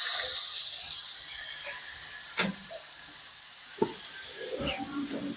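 Cooking fat sizzling in a pan heated for a tadka, loudest at first and slowly fading. A sharp click about two and a half seconds in and some utensil clatter near the end.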